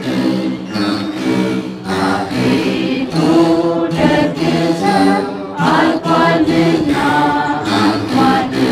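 A group of women singing an Ethiopian Orthodox begena hymn (mezmur) together in slow, held chant-like lines, accompanied by their plucked begenas.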